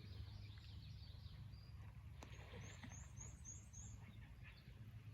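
Faint outdoor bird chirps over a low steady rumble, with a run of five quick, high, short notes near the middle.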